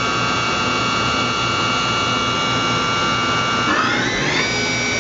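Kitamura MyCenter 2X-if vertical machining center's spindle running at 6,000 RPM with a steady whine of several tones. About three and a half seconds in, it speeds up in a rising whine and settles at 10,000 RPM near the end. It runs smoothly, with no harmonics or vibration.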